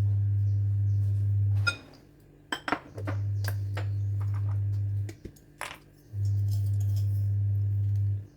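Light clinks and taps of a spoon and spice containers against a bowl, with a loud low hum that comes on for about two seconds at a time, three times, with short gaps between.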